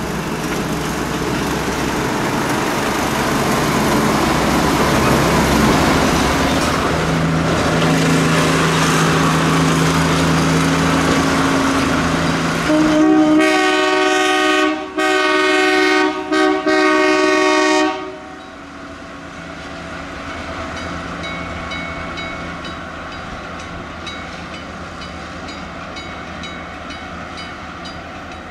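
Planet narrow-gauge diesel locomotive running, loudest about six seconds in, then sounding its horn in three blasts about halfway through, the first and last the longest; afterwards it runs on more quietly.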